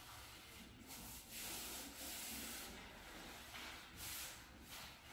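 Faint rubbing and scuffing of hands pressing and smoothing a vinyl strip into adhesive along the bottom of a wall, in a few uneven swells lasting up to about a second and a half each.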